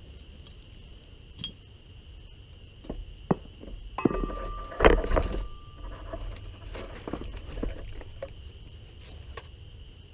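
Scattered knocks and metallic clatter, with a dense cluster about four to five and a half seconds in that holds the loudest knock and a brief ringing metal tone. A steady high insect chirring carries on underneath.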